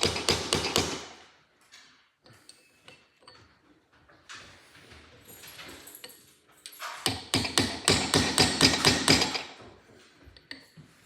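A hammer striking a metal drift to tap a slotted ABS reluctor ring down onto a car's drive shaft. It comes as two runs of quick, light blows, one at the start and another from about seven seconds in.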